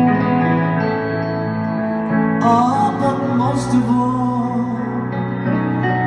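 Live soft-rock ballad: a woman singing over grand piano chords with electric guitar accompaniment, her voice line entering about halfway through.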